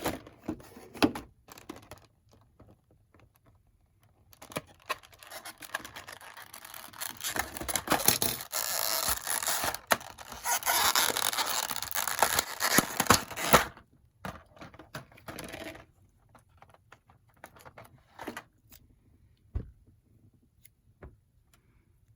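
Plastic packaging being handled while an action figure is unpacked: irregular rustling and scraping, loudest in the middle, with scattered small clicks that thin out towards the end.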